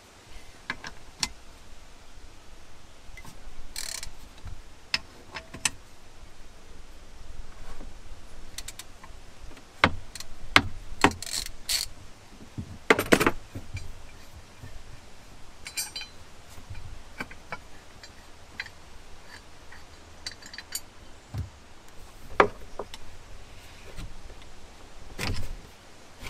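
Metal scraper scraping and clicking against the exhaust port face of a Yamaha VXR 650 jet ski engine as the old exhaust gasket is scraped off: irregular scrapes and sharp knocks, busiest about ten to thirteen seconds in.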